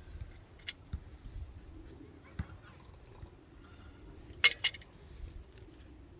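Quiet background with a few sharp clicks and clinks; the loudest are two close together about four and a half seconds in.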